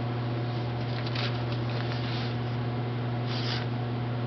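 Knife blade slicing through paper to test the freshly sharpened edge: several short, soft hissing cuts, the clearest near the end. A steady low electrical hum runs underneath.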